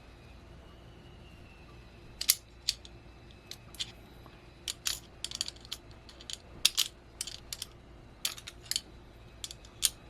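Small metal hardware of a VESA monitor-mount adapter (bolts, nuts, rings and a small tool) clicking and clinking irregularly as it is fitted and tightened by hand, starting about two seconds in.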